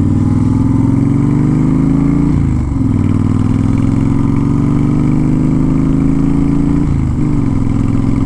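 Honda Fury's V-twin motorcycle engine accelerating through the gears, its pitch rising steadily. It is cut by two upshifts, about two and a half seconds in and about seven seconds in, each dropping the pitch before it climbs again.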